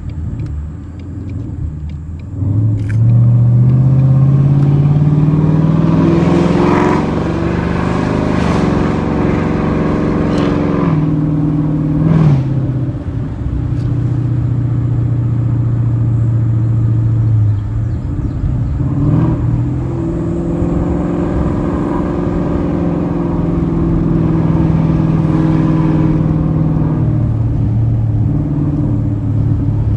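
Straight-piped exhaust of a 2020 Mustang GT's 5.0-litre V8 through an MBRP cat-back, loud, with the revs climbing slowly for several seconds, falling sharply about twelve seconds in, then holding mostly steady.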